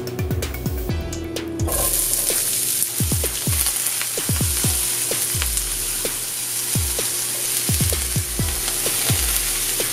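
Diced onion, garlic and celery sizzling in hot olive oil in a cast-iron skillet, being stirred with a wooden spatula. The sizzle starts suddenly about two seconds in, as the vegetables hit the oil, and then holds steady.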